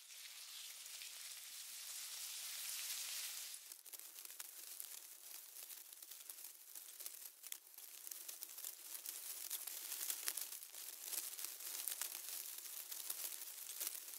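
Faint, high-pitched crackling hiss scattered with many tiny ticks and clicks. A louder rush of hiss in the first few seconds cuts off suddenly about three and a half seconds in, and the crackling carries on.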